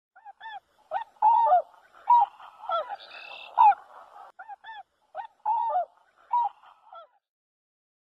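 Swan calling: a string of short honks at irregular intervals, some coming close together in pairs.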